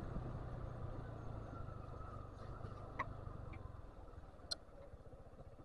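A vehicle's engine running steadily at low speed, its rumble dropping away about four seconds in, with a couple of faint clicks.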